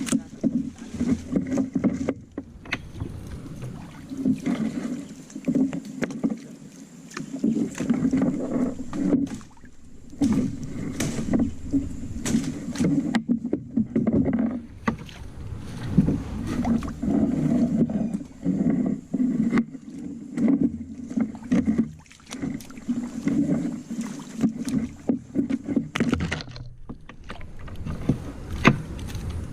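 Water sloshing and splashing around a small river boat, in irregular surges, with frequent knocks and clicks against the hull.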